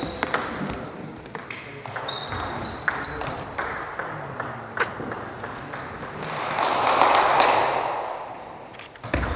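Table tennis ball clicks on the table and paddles, with short high shoe squeaks on the hall floor between points. About two-thirds through, a swell of noise rises and fades over about two seconds, and a sharp click comes just before the end.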